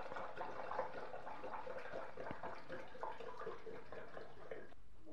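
Home-distilled rice wine being poured into a bottle: a steady trickle of running liquid.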